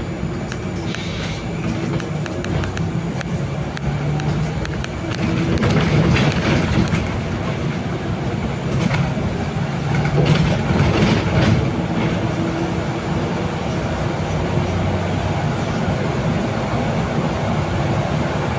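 Inside a Solaris Urbino 18 III articulated city bus under way: engine and drivetrain running with tyre noise from the wet road, growing louder twice along the way.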